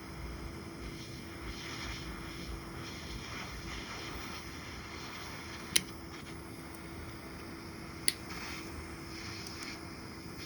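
Steady rushing hiss of a small torch flame heating a fishhook, with two sharp metal clicks a little over two seconds apart, past the middle.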